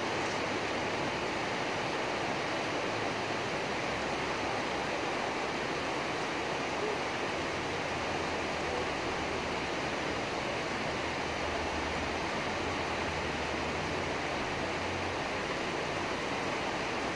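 Steady rain falling, an even, unbroken hiss with no thunder.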